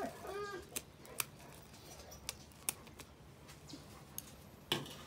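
A leghorn hen gives a short falling distress call, then several sharp snips of scissors cutting through her wing flight feathers. A brief burst of noise comes near the end.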